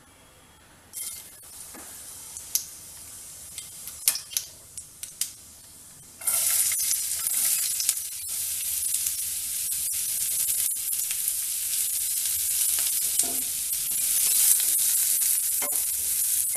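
Hot oil in a frying pan with a few sharp pops and crackles, typical of whole spices spluttering. About six seconds in, chopped onions are tipped in and start sizzling loudly and steadily, with fine crackling as they fry and are stirred with a wooden spatula.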